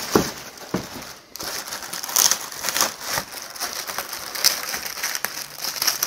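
Clear plastic wrapping crinkling and rustling in quick, irregular crackles as it is handled and pulled open around a model aeroplane wing, with a couple of light knocks in the first second.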